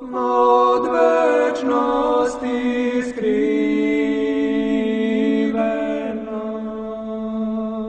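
Orthodox chant sung a cappella: a slow melody moving in steps over a steady held low drone.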